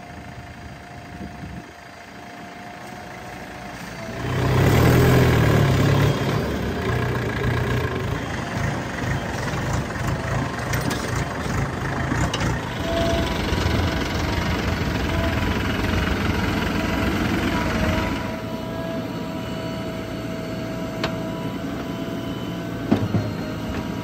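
Diesel engines of farm tractors and a JCB backhoe loader running. The sound jumps much louder about four seconds in, then holds steady.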